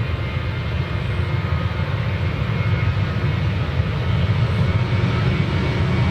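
Jet airliner engines running with a steady low rumble and a faint high whine, slowly growing louder.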